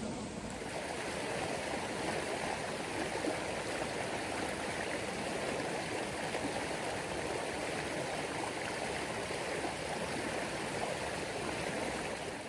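Shallow creek running over rocks, a steady babble of water.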